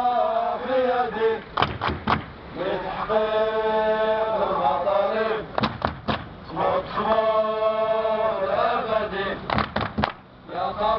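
Crowd of protesters chanting a slogan in unison: three long drawn-out phrases about four seconds apart, with a few short sharp knocks in the gaps between them.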